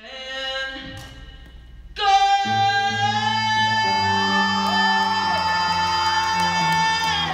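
Solo female singer with accompaniment. About two seconds in, after quieter music, her voice comes in on one long, loud held note lasting about five seconds over a band or backing track with a bass line.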